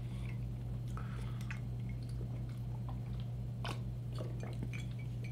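A man drinking from a ceramic mug: a few faint sips and small mouth and mug clicks over a steady low hum.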